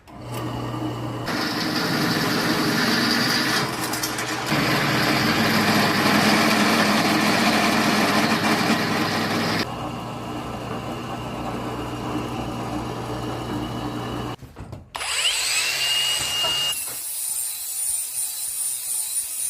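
Drill press motor running with the bit cutting through steel plate, enlarging pilot holes into full-size holes: a steady motor hum under harsh cutting noise, heaviest in the first half and lighter later. After a brief break near the end, a different power tool runs with a steady high whine.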